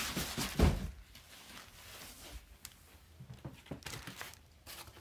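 A large cardboard game box is set down with one heavy thunk about half a second in, after a little rustling. Faint scrapes and taps of handling follow.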